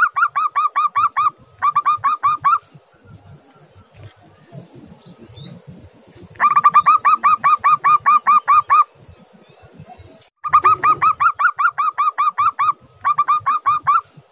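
Zebra dove (perkutut) calling in rapid staccato bursts of short cooing notes, about six a second, five bursts of one to two seconds with pauses between.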